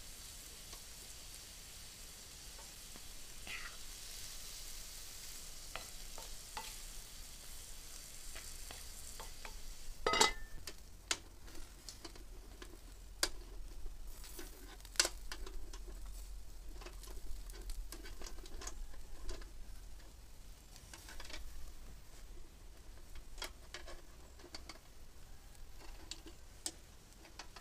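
Liver pieces sizzling in a wide metal pan over charcoal, a steady hiss with a few light clicks. About ten seconds in, metal skewers start clinking and clattering at irregular intervals as they are turned on a charcoal grill, over a fainter sizzle.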